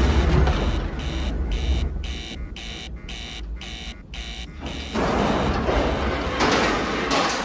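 Film sound of a spacecraft cabin in an emergency. A warning alarm beeps about twice a second, some eight times, over a low rumble. About five seconds in, a loud rushing, rumbling noise takes over.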